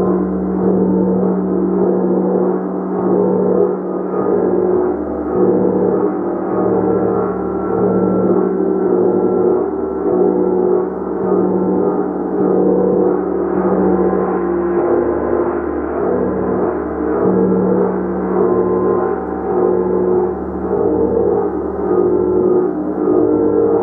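A gong played continuously: a dense, sustained hum of many overlapping tones, deepest and strongest low down, swelling and dipping in a slow, uneven pulse without a break.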